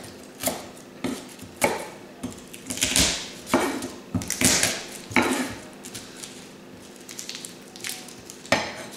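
Chef's knife cutting garlic cloves on a wooden cutting board: irregular knocks of the blade on the board, roughly one or two a second, with a few short crunches.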